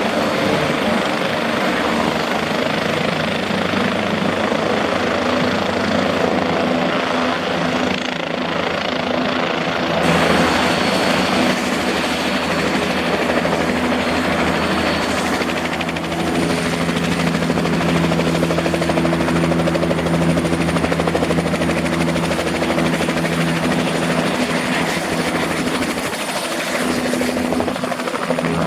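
Turbine helicopter running close by, a steady mix of engine noise and rotor beat, getting somewhat louder about ten seconds in.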